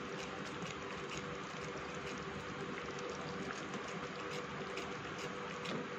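Thick cornflour-thickened gravy boiling in a pot: a steady bubbling hiss with a few faint pops.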